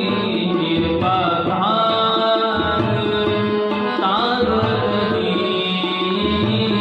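Sikh Gurbani kirtan: a voice singing a melody that glides between notes, over a held harmonium-style drone and tabla rhythm.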